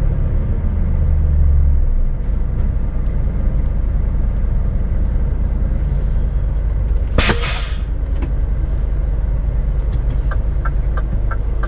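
Scania S500 truck's V8 diesel running with a steady low rumble, heard from the cab. About seven seconds in there is a short, loud hiss of air from the air brakes. Light, regular ticks come near the end.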